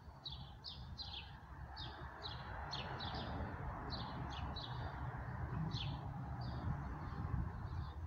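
Songbirds chirping: short, high, downward-sweeping chirps about two a second, over a steady low background rumble.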